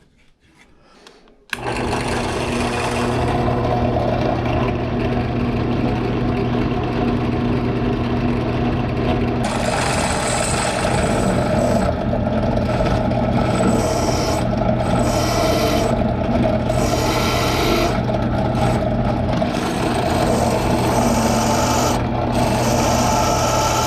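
Drill press switched on about a second and a half in, its motor running with a steady hum while the bit cuts into the head of a stripped Allen-head bolt, with a rasping noise from the cutting that comes and goes.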